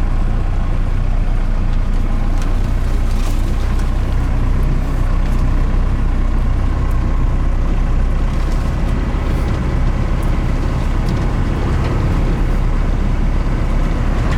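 Cummins 4BT four-cylinder diesel engine of a Ford F-150 pickup running steadily as the truck creeps slowly along a rough trail, with a few light knocks and rattles.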